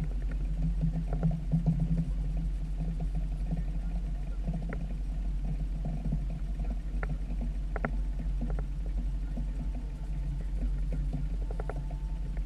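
Small outboard motor running steadily at low speed, with scattered light clicks and knocks on the boat.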